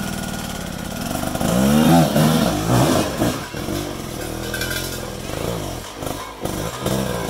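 Rieju enduro motorcycle's engine revving up and down in repeated short blips under load as it climbs over rock ledges, the biggest rises about two seconds in and again near the end.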